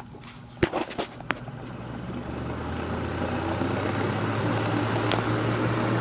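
Blizzard electric desk fan switched on with a few clicks at its rear switch, its motor hum and blade whoosh building up over a couple of seconds as it spins up, then running steadily. It is running without oscillating, with the lever up, the setting said to make it sound better.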